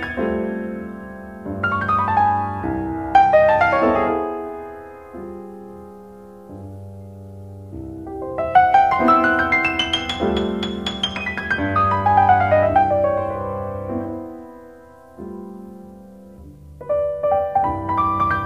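Piano music: runs of notes that climb and then fall away over held bass notes, with softer lulls in between.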